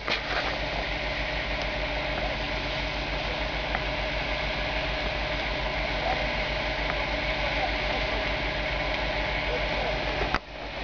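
Fire engine's diesel engine running steadily at a fast idle, with a steady hum over it. A brief dropout comes near the end.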